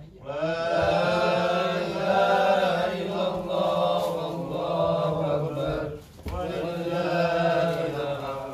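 A man reciting the Quran aloud in a melodic chant, drawing out long held phrases, with a short break about six seconds in.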